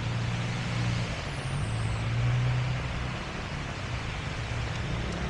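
Steady hiss of heavy rain with a motor vehicle's engine running close by, its low hum loudest a little after two seconds in. A short, faint high squeal falls in pitch just over a second in.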